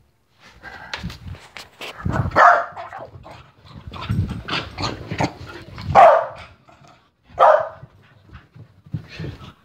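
Corgi barking several short times in play, the barks loudest about two, six and seven and a half seconds in, with clicks and rustling between them; barking to get someone to play.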